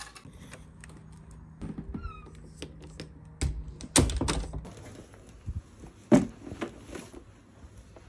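Light clicks and taps of objects being handled, with louder knocks about three and a half, four and six seconds in and a brief squeak about two seconds in.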